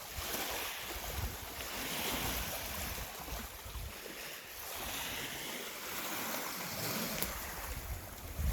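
Lake Superior waves washing against the rocky shore, a steady rushing hiss that swells and eases, with wind gusting on the microphone.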